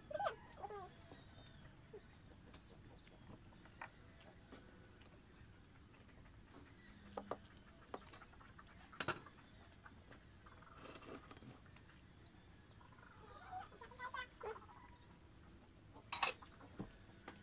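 Faint, sparse clicks and taps of eating with the hands from a plate. A cat meows right at the start, and a few short animal calls come near the end.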